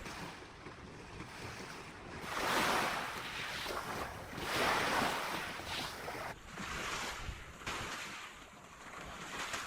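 Sea waves washing in, a steady hiss of water with two louder surges, one a couple of seconds in and another about halfway through.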